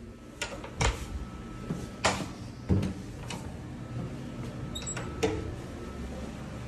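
A room door being worked by its lever handle: a series of sharp clicks and knocks from the handle, latch and door, with a brief high beep about five seconds in.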